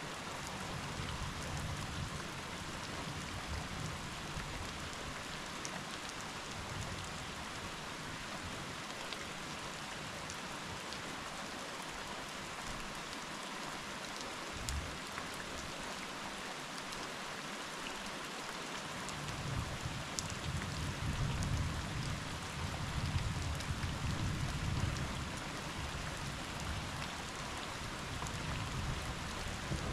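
Steady rain falling, heard through a window. A low rumble of distant thunder comes back about two-thirds of the way in and grows louder toward the end.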